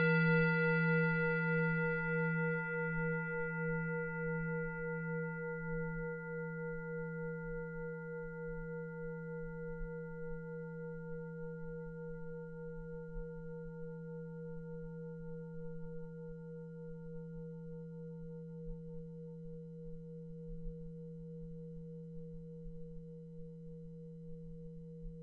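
Singing bowl ringing out from a single strike: a deep hum with a fainter middle tone and higher overtones, wavering slowly as it fades. The higher overtones die away within the first few seconds, leaving the low hum still sounding at the end.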